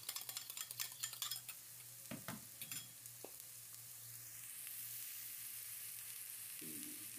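Fork beating eggs in a glass bowl, with quick clicks against the glass for the first second and a half. Then diced onion frying in a pan, a steady sizzle from about four seconds in.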